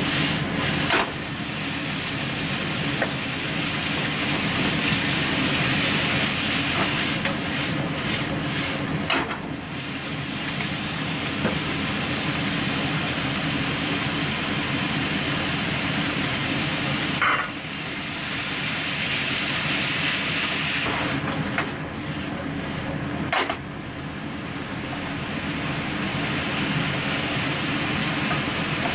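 Bean sprouts sizzling as they stir-fry in a hot pan, a steady hiss broken by a few sharp clicks of a utensil against the pan.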